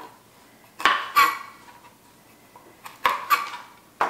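Chef's knife chopping the ends off green beans onto a plastic cutting board: sharp chops in quick pairs, about a second in and again about three seconds in, with one more at the end.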